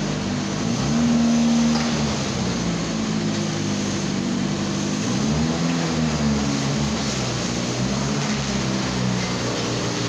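An engine running steadily, its low pitch drifting up and down every second or two.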